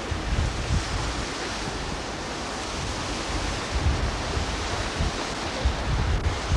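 Wind blowing over the camcorder's microphone: a steady rushing hiss with irregular low buffeting gusts.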